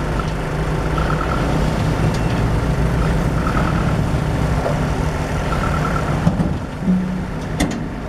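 Diesel engine of a Mitsubishi light dump truck running steadily as the truck tips its load of soil with the bed raised, creeping forward. A couple of sharp clicks sound near the end.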